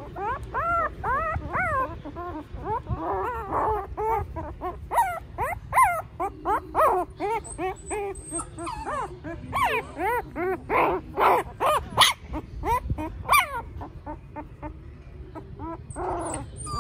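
A litter of newborn puppies whimpering and squealing: many short cries that rise and fall in pitch, overlapping several to the second, dying down near the end.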